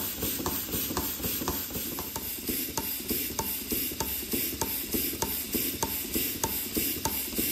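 Stuart model beam engine running: a steady mechanical clatter from its beam, linkage and crank, with a light regular tick about every 0.6 seconds.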